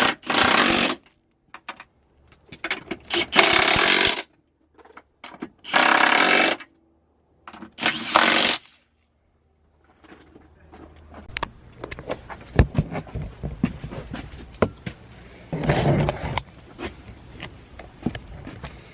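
Four loud bursts of a rattling power tool, each about a second long, with dead silence between them, then scattered metallic clicks and knocks of hand work on the engine.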